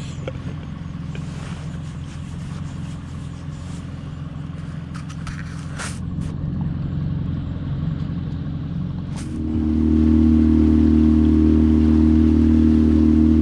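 Small boat's outboard motor running steadily, then opened up about nine and a half seconds in, becoming clearly louder and holding there as the boat gets under way.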